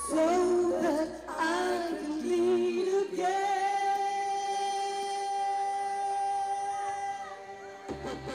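A woman singing into a microphone over a stage PA. A few short sung phrases lead into one long held note of about four and a half seconds, which ends shortly before the close.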